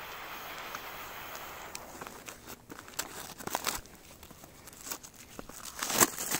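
Cellophane wrapping on a cardboard box of firecrackers crinkling and tearing as it is unwrapped by gloved hands. The crackles are irregular, start about two and a half seconds in, and are loudest near the end.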